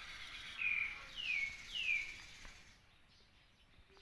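Baby macaque giving three short, high squeals, each falling in pitch, in the first two seconds, over the rustle of a towel rubbed on its fur.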